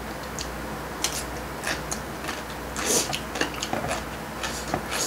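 Chopsticks tapping and scraping on a plate of stir-fried noodles, a scatter of light, sharp clicks, with a brief hiss about three seconds in.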